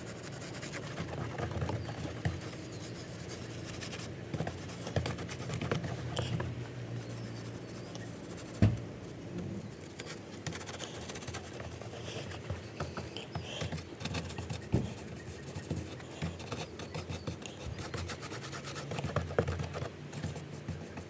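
Paintbrush scrubbing and dabbing PVA glue over a textured model embankment: a soft, irregular scratching of bristles. Two sharper knocks come about nine and fifteen seconds in.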